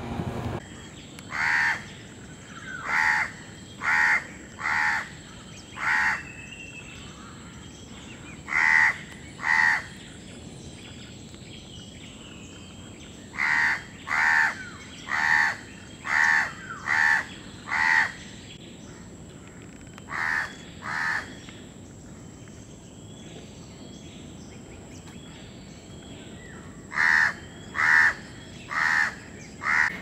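A crow cawing: harsh calls in runs of two to five, about a second apart, with pauses of a few seconds between runs.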